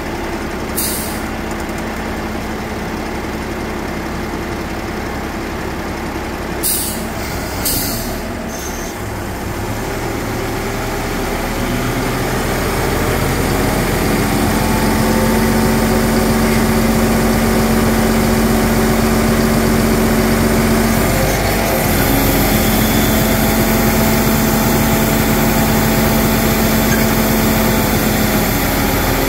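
Volvo FE-320 truck's 7-litre six-cylinder diesel running, with three short air hisses in the first eight seconds. About ten seconds in, the engine speeds up and then holds a steady, higher, humming pitch, dipping briefly just past twenty seconds.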